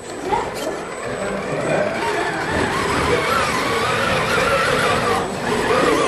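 Scale RC rock crawler's electric motor and geared drivetrain whining as it climbs over rocks, the pitch wavering up and down with the throttle.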